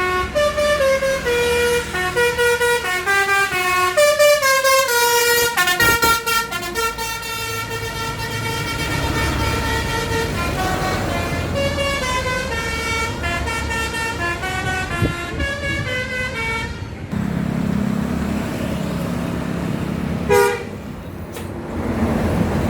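A bus's basuri telolet musical horn playing a tune of quick stepped notes, stopping about seventeen seconds in. The bus's engine then runs, with one more short horn blast near the end.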